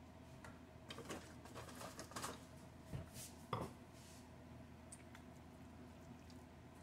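Light clinks and knocks of kitchenware as a glass bowl is handled, several small strikes in quick succession, the loudest about three and a half seconds in.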